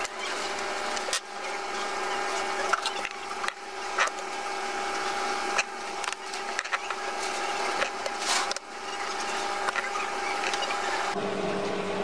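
A steady mechanical hum with a low, even tone, under a few sharp light clicks of metal tweezers and a small metal magnifier being handled and set down on a tabletop.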